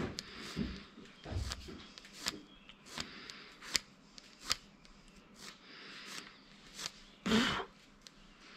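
Hand-tool work on a tractor starter motor: sharp metallic clicks at a fairly even pace, about one every three-quarters of a second, with a louder clatter about seven seconds in.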